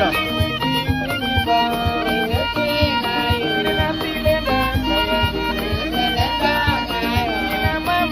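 Background music: a lead melody that slides and wavers in pitch over a steady beat.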